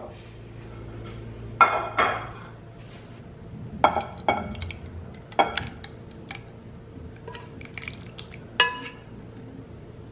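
A metal spoon clinking against a stainless steel pot and a ceramic baking dish as thick, creamy filling is scooped and poured out. There are about half a dozen sharp, ringing clinks a second or more apart.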